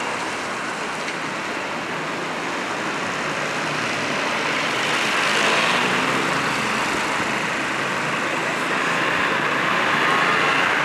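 Street traffic: cars and motor scooters passing, a steady hiss of tyres and engines that swells as vehicles go by about five seconds in and again near the end.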